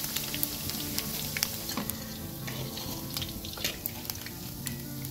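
Skewered spiral-cut potato slices deep-frying in hot oil in a large wok, a steady sizzle with frequent sharp pops and crackles.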